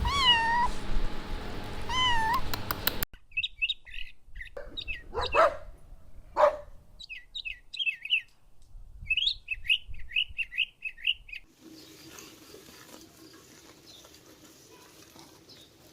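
A cat meows twice. After an abrupt cut, a small bird chirps in quick runs of short, high chirps for about eight seconds. Only faint background hiss follows near the end.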